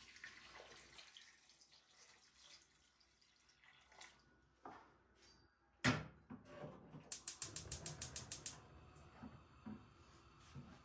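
Kitchen handling noises: a sharp knock about six seconds in, then a quick run of about a dozen clicks over a second and a half.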